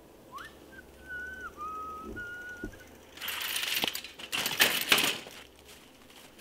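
A person whistling a few wandering notes for about two and a half seconds. Then comes a louder rough scraping and crunching noise in several bursts lasting about two seconds.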